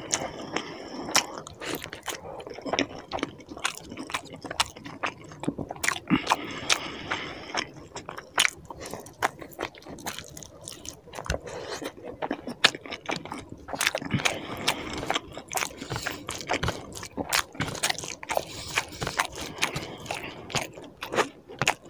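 Close-miked eating of chicken curry and rice by hand: chewing and wet mouth noises, with the squelch of curry-soaked rice mixed in the fingers. Many sharp clicks at irregular intervals throughout.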